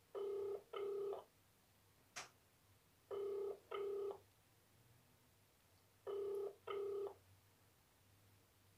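Telephone ringback tone heard through a mobile phone's loudspeaker: a double ring, two short beeps close together, repeating three times about every three seconds. The called phone is ringing at the other end and nobody answers.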